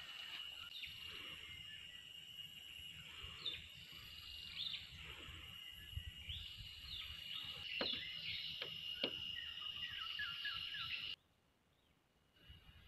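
Garden ambience of birds chirping in short, repeated calls over a steady high-pitched drone, with a few soft low knocks. About eleven seconds in, the sound cuts out abruptly for about a second.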